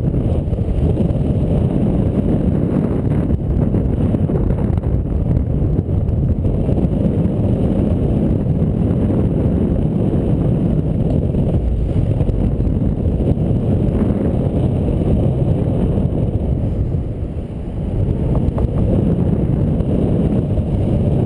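Wind of the paraglider's flight buffeting the camera microphone: a steady low rumble that eases briefly about seventeen seconds in.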